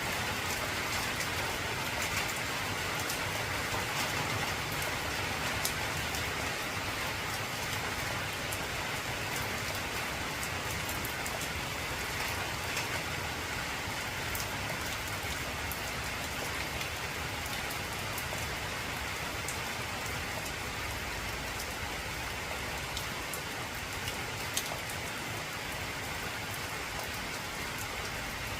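Heavy rain falling steadily on an old corrugated tin roof: an even, unbroken patter with many sharp individual drop ticks on the metal.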